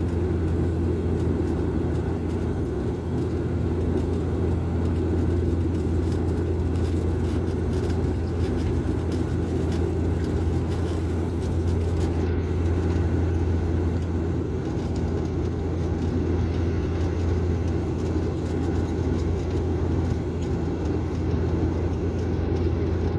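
Steady drone of an airliner's engines and rushing air, heard inside the passenger cabin as the plane descends to land.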